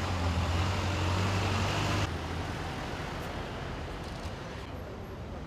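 City street traffic: cars and trucks driving past, with engine and tyre noise. A heavy low engine rumble for the first two seconds cuts off suddenly, leaving a quieter steady traffic hiss.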